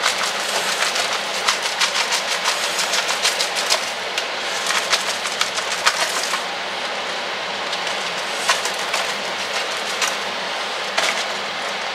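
Frozen leaf spinach tipped into a hot frying pan of salmon in oat cream, sizzling and crackling. Dense small clicks fill the first six seconds and then thin to a few, over a steady hiss.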